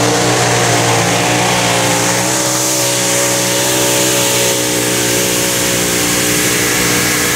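Supercharged racing engine of a mini unlimited pulling tractor running flat out under the load of the sled, holding steady high revs throughout.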